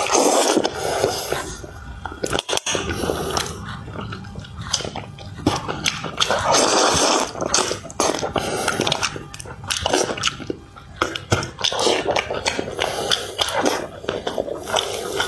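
Close-miked chewing and biting of spicy braised fish: several longer stretches of wet chewing, with short clicks and smacks between them.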